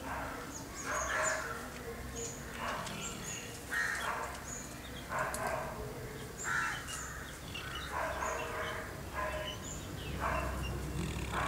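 A sleeping Labrador snoring, one noisy breath about every second and a half, with small birds chirping faintly behind it.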